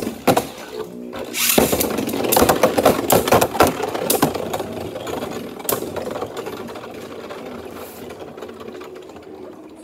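Beyblade Burst spinning tops spinning and clashing in a clear plastic stadium: a dense clatter of hits and scraping, loudest in the first few seconds, then fading steadily as the tops slow down.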